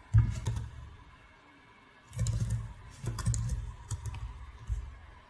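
Typing on a computer keyboard: a quick burst of keystrokes just after the start, a pause, then more runs of key clicks for the last few seconds.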